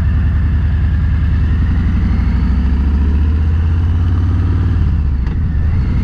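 Motorcycle engine running steadily while riding, with an even, rapid firing pulse; the engine note eases briefly about five seconds in, then picks up again.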